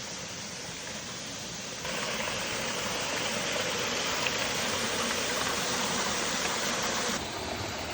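Waterfall's rushing water, a steady noise that jumps louder abruptly about two seconds in and drops back just as abruptly near the end.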